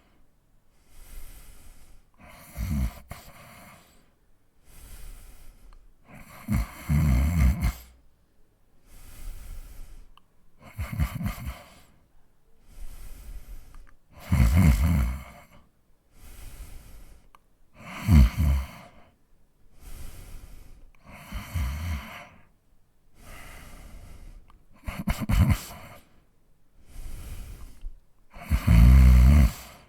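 A man snoring: a loud, low snore about every three to four seconds, with quieter breaths in between.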